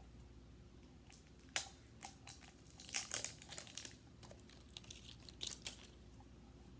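Hands opening a plastic surprise egg and handling its packaging: an irregular scatter of crinkling and sharp clicks, loudest about a second and a half and three seconds in.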